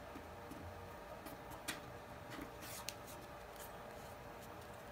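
Faint rubbing and a few light clicks of fingers pressing a thin adhesive-backed wood veneer piece down onto a wooden trophy and handling the piece.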